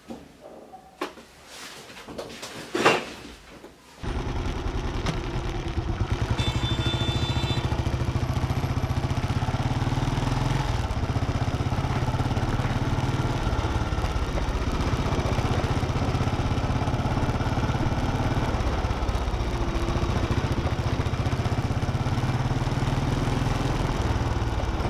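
A few light clicks and knocks. Then, about four seconds in, a motorcycle engine cuts in, running steadily at riding speed with a fast, even firing pulse under a rush of wind noise.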